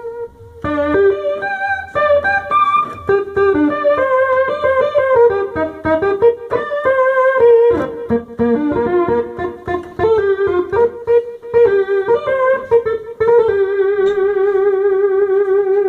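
Korg N264 keyboard playing a melody on its Mini Lead synth patch, layered twice in a combi with both layers still in tune, not detuned. It opens on a held note, moves through a run of quicker notes and ends on a long held note; the held notes waver in pitch.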